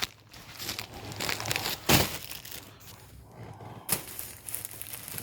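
Paper goods in their packaging crinkling and rustling as they are handled, with a loud crackle about two seconds in and a sharp click near four seconds.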